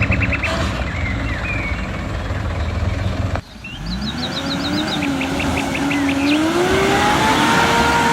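Off-road vehicle engine running under load, then after an edit cut about a third of the way in, its pitch climbs slowly and holds as it revs up. Rapid trills of bird chirps sound over the engine in both parts.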